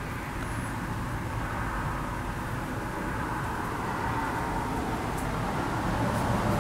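Engine oil pouring from a quart bottle through a funnel into an outboard motor's oil filler: a steady pour.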